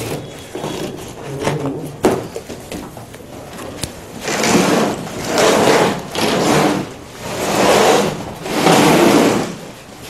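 Packing tape being peeled off a cardboard refrigerator carton: about five long tearing pulls of roughly a second each in the second half, after lighter handling and rustling of the box.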